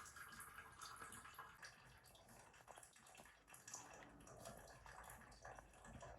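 Near silence: faint room tone with scattered small, soft noises.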